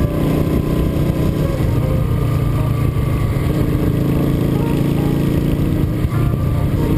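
Motorcycle engine running steadily at road speed, with wind and road noise. The sound dips briefly about six seconds in.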